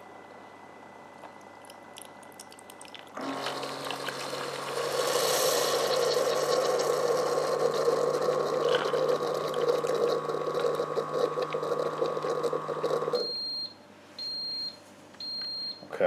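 Ninja DualBrew Pro coffee maker brewing over ice: about three seconds in, its pump starts with a steady hum and a hiss of hot water forced through the K-cup. It runs for about ten seconds and cuts off, then the machine gives short high beeps about a second apart, signalling that the brew is finished.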